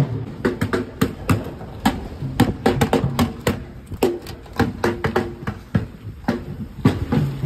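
Drums being beaten: a dense, irregular run of sharp strikes with a low tone under some of them.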